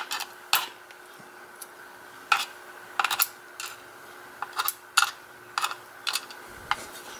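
Small metal lock pins and springs clicking as they are pushed around and set down on a hard surface, some fifteen light, sharp clicks at irregular intervals.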